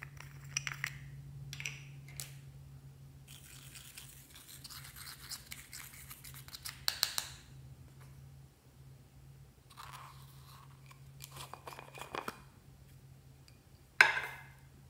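Small plastic jars of glitter and sequins being handled, opened and tipped out into a glass baking dish: scratchy rustling and light clicks, with the loudest moment near the end as a jarful of sequins pours out onto the glass.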